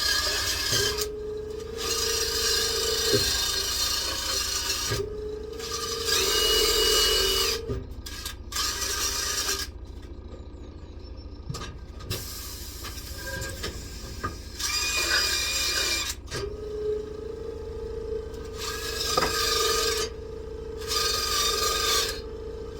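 Small impact driver fitted with a brush bit, run in stretches of a few seconds, the longest near the end, with a steady motor whine over the scratch of the brush, scrubbing residue off a wheel rim.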